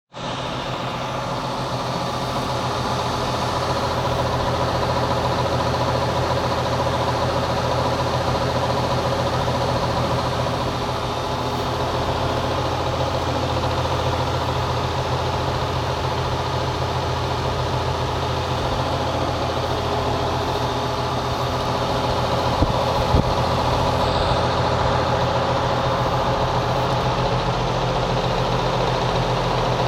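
Goodman air-conditioner condenser fan running with a steady hum and whir made up of several held tones, with two brief ticks about three-quarters of the way through. It is an abnormal noise that the owner cannot pin on either the fan blades or the fan motor; the blades, which have struck frogs, look undamaged.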